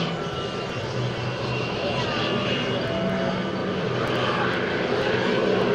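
Heavy engines droning steadily, the low hum shifting up and down in pitch every second or so, with people's voices in the background.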